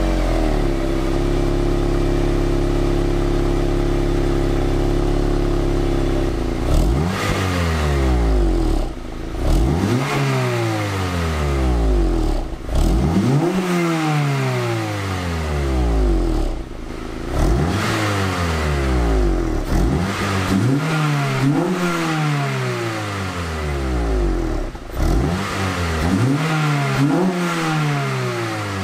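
Acura RSX Type-S's K-series four-cylinder heard through its stock exhaust, running steady for about six seconds, then revved in about eight quick blips, each rising and falling back.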